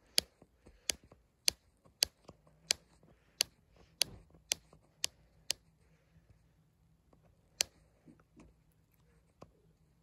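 Chocolate-pied society finch pecking at a quilted bedspread with its beak: a run of sharp clicks, about two a second for five seconds, then after a pause one more loud click and a fainter one near the end.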